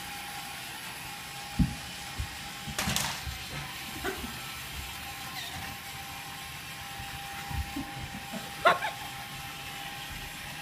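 Remote-control toy car's small electric motor giving a short buzzing whir about three seconds in, among scattered footsteps and knocks on a hardwood floor. A faint steady high hum runs underneath.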